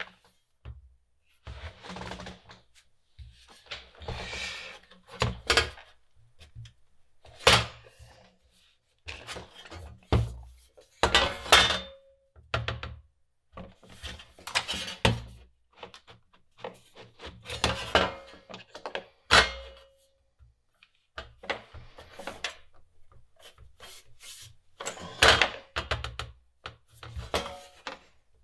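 Irregular knocks and clunks of the metal back plate of an Amiga 500 keyboard being pressed and bent against the bench to straighten it. A few strikes leave a brief metallic ring.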